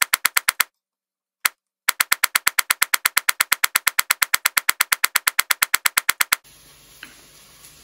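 Kitchen knife chopping leek on a wooden chopping board: rapid, very even knife strikes, about nine a second. They stop for about a second with a single strike in the gap, start again, and end a little over a second before the end.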